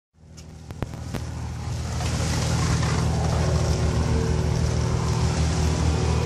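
Steady low engine drone that builds over the first two seconds and then holds, with a hiss above it. A few sharp clicks come in the first second.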